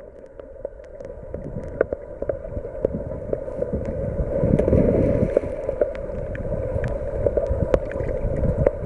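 Sea water sloshing and gurgling against a camera bobbing at the surface, with scattered sharp splashes and slaps over a steady low hum; the water noise swells louder about halfway through.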